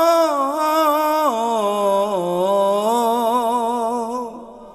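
Bengali folk song: a singer holds one long sung 'o' with vibrato, stepping down in pitch about a second in and again about two seconds in, then fading out near the end.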